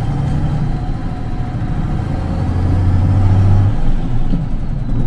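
A vehicle's engine running steadily on the move with a low, even hum. The hum drops off sharply about three and a half seconds in, as when easing off or changing gear.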